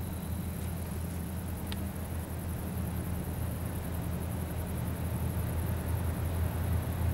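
Low, steady drone of a distant, approaching 3TE10U three-section diesel locomotive, slowly growing louder.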